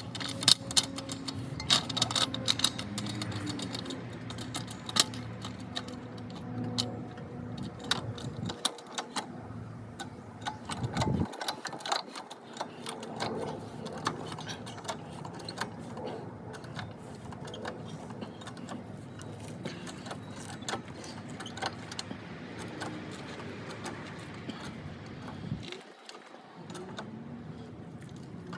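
Car driving, heard from inside the cabin: a steady low hum of engine and road noise with many irregular sharp clicks and rattles over it.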